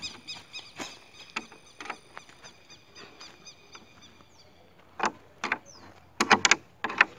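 An insect chirps in quick, even pulses for the first couple of seconds. From about five seconds in, a handmade pine-plank door being gripped and handled gives a few sharp wooden knocks and clatters, the loudest near the end.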